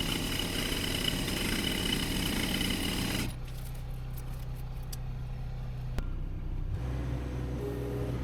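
Heavy machinery engine running. A little over three seconds in, the busy, noisy machine sound cuts off abruptly, leaving a low, steady engine hum that drops slightly in pitch near the end.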